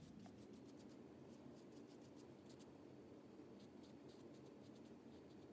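Faint, irregular scratchy ticks of a paintbrush dabbing paint onto paper, over quiet room tone.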